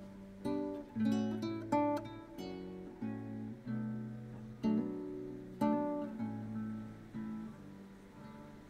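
Background music: an acoustic guitar picking single notes and chords at an unhurried pace, each note ringing and dying away, growing quieter near the end.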